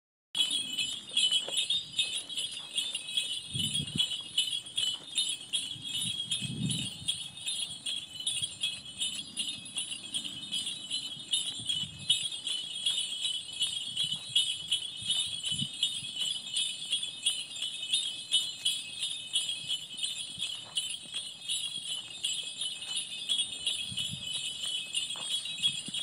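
A set of fifteen antique horse sleigh bells in #7 and #8 tones jingling continuously, a dense bright ringing with now and then a soft low bump.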